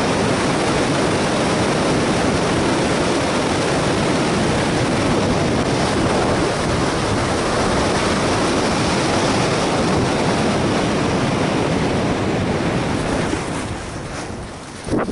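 Heavy wind rushing over the camera microphone during a fast speedflying descent. It drops away over the last couple of seconds as the pilot slows to land, with a single sharp knock near the end.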